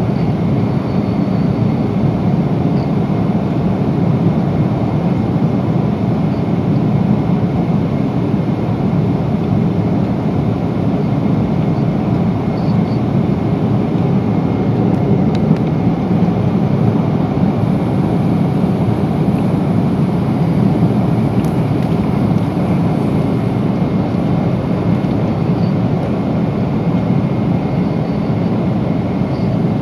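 Steady cabin noise inside a Boeing 777-300 airliner at cruise: the engines and the rush of air past the fuselage as an even, low rumble, with a couple of faint ticks.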